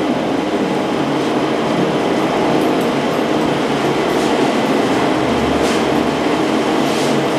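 Hydrogen inhalation machine (an electrolysis hydrogen generator with a bubbling water chamber) running with a steady mechanical hum.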